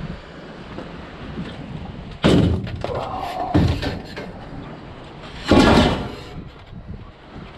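Three sudden bangs, like heavy objects being handled or a door slammed: a sharp one about two seconds in, a smaller knock a second later, and the loudest about halfway through, ringing briefly as it dies away.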